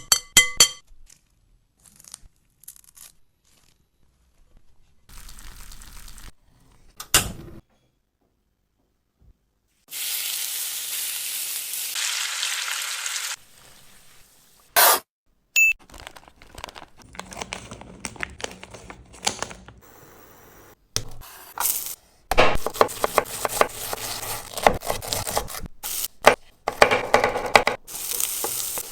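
Food being prepared for macaroni pasta masala, with sharp clicks and knocks of kitchen utensils. A steady hiss lasts about three seconds, a third of the way in. A dense run of scraping and crackling comes near the end.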